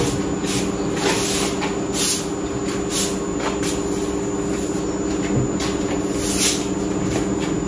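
A broom swept over a concrete floor in repeated short strokes, roughly one or two swishes a second. Under it runs a steady mechanical hum.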